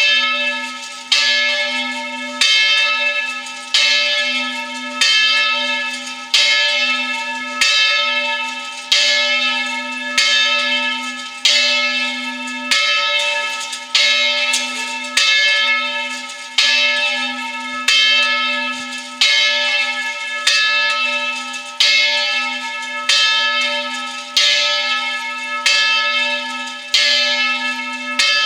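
Church bell ringing in an even rhythm, about one stroke every second and a quarter, each stroke ringing on and fading into the next.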